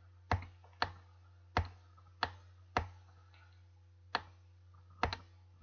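About eight computer mouse clicks at uneven intervals, a close pair near the end, while a PDF page is scrolled down, over a faint steady low electrical hum.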